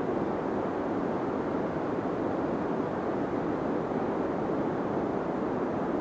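Steady deep white noise for sleep: an even, muffled rush weighted toward the low end with little high hiss, unchanging throughout.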